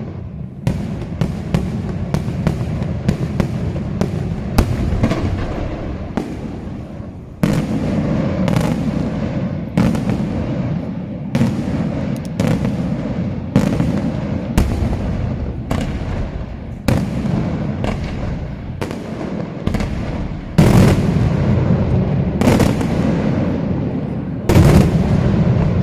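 Daytime aerial fireworks display: a rapid run of sharp shell bursts, about one or two a second, over a continuous rumbling echo. Heavier booms come about seven seconds in, around twenty seconds and near the end.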